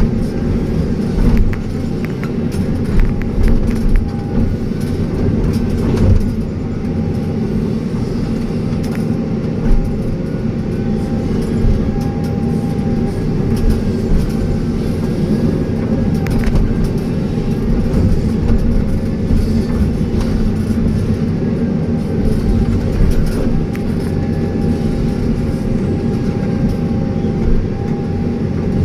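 Excavator's diesel engine running steadily under working load, with a faint wavering whine over it and a few knocks and clanks, most of them in the first ten seconds.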